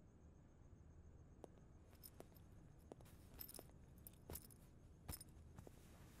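Near silence: quiet room tone with a few faint clicks and rustles as a shoulder bag is handled and set down.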